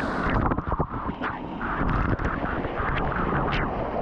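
A plunge into a waterfall pool heard from underwater: muffled rushing water, its high hiss suddenly cut off, with a flurry of bubbling clicks in the first second and scattered bubble ticks after.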